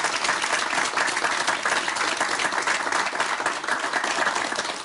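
Studio audience applauding: dense, steady clapping that eases off slightly near the end.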